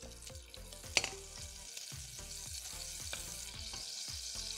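Butter melting and sizzling in a stainless steel saucepan as it is stirred with a wooden spoon, the sizzle growing after about a second. A single sharp click comes about a second in.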